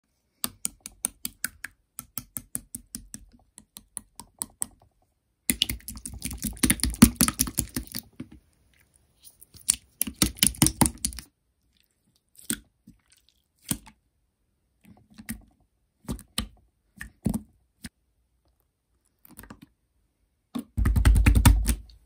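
Pearly marbling slime squished and pressed by hand in plastic tubs, giving quick wet clicks and crackling pops as air pockets burst. A steady run of clicks at the start gives way to dense crackling spells about five seconds in, around ten seconds and near the end, with scattered single pops between.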